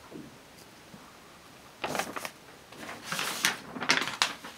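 Desk handling noises: a quiet first two seconds, then a brief rustle with a soft knock, followed by a longer run of rustling and light clicks and knocks, as the pen is put away and things on the desk are moved.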